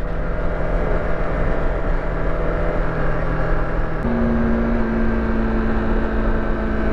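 Yamaha R25 parallel-twin engine running at a steady cruise, under a loud rush of wind over the helmet microphone. About four seconds in, the engine note changes abruptly to a different steady pitch.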